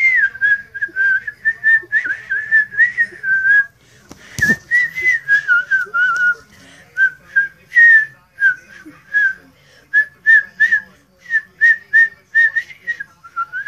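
A person whistling through pursed lips, a wavering high tone that stays near one pitch. It starts as a continuous run, then turns into a string of short separate notes after a brief pause. A single sharp knock comes about four and a half seconds in.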